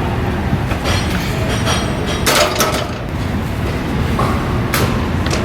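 Steady low rumble with sharp metallic clanks, one about two seconds in and another near the end, and a few lighter clicks between.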